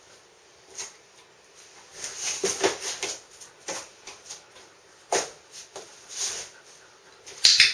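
Dog's paws shifting in a cardboard box on a tiled floor: scattered short taps and scuffs of cardboard, a small cluster a couple of seconds in and the loudest just before the end.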